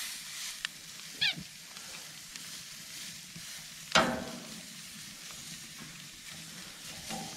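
Beaver steaks sizzling on a hot gas grill, a steady hiss, with steel tongs clicking against the meat and grate; the loudest is a sharp ringing clank about four seconds in.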